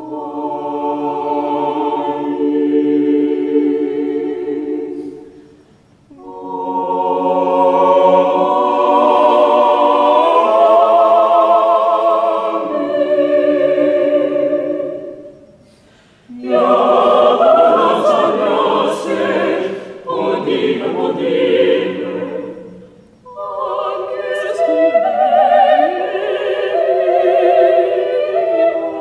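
A choir singing sustained chords in long phrases, with three short breaks between phrases.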